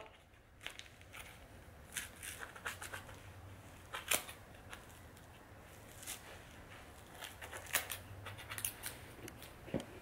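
Scissors snipping through hair matted around a Dyson vacuum's brush roller, the hair buildup that keeps the roller from spinning freely. Faint, irregular short snips, roughly one a second.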